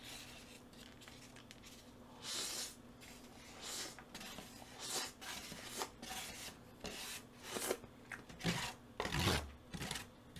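A metal spoon scraping and scooping fried rice from a plastic takeout tray: a string of short, faint rasping scrapes, with a couple of louder, lower sounds near the end.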